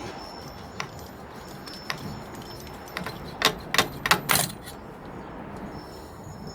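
A knife cutting through the plastic frame of a socket set: a few sharp clicks and clacks, then a quick cluster of them about three and a half to four and a half seconds in.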